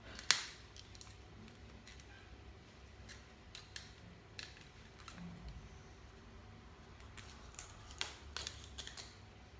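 Scattered light clicks and small handling noises of thin sewing thread being unwound off its spool and handled.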